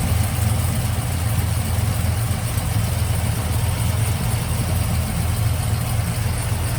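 Supercharged LS2 V8 idling steadily with its serpentine belt removed, with no belt chirp heard. This points the owner to a pulley or the belt itself as the source of the chirp.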